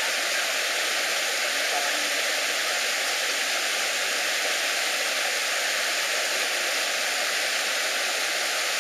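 Small waterfall in a rocky stream, water rushing and splashing over boulders in a steady, unbroken rush.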